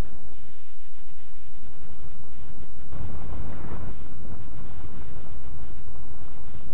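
Airflow rushing over the microphone of a small camera mounted on the wingtip of a motorless discus-launch glider in gliding flight: loud, rough, deep noise that swells about three seconds in.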